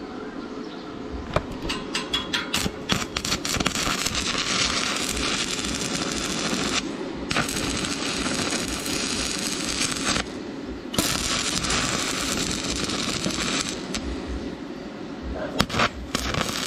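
Stick (arc) welding with a coated electrode on steel pipe. After a few scattered crackles as the arc strikes, it crackles and sputters in three steady runs of a few seconds each, with short breaks between them, then ends in a few sputters.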